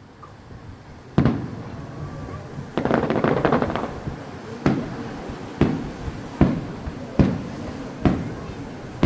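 Fireworks shells bursting: a single bang about a second in, a burst of crackling around three seconds, then a steady run of bangs a little under a second apart.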